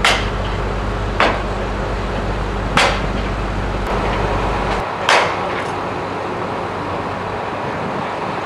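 Four sharp knocks, like tool strikes, at uneven intervals, over the steady low hum of an idling engine that cuts off about five seconds in.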